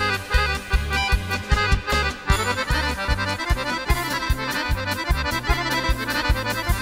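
A Serbian kolo dance tune played on accordion, with a run of fast notes over a steady bass beat.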